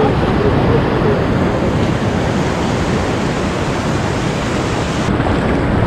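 Steady, loud wind buffeting the microphone, with surf washing in shallow water.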